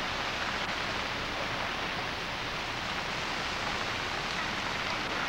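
Steady hiss of rain falling on shallow floodwater.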